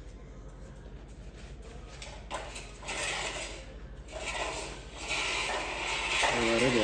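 Kitchen handling noises: rubbing and rustling in several short spells. A brief pitched, wavering sound near the end is the loudest.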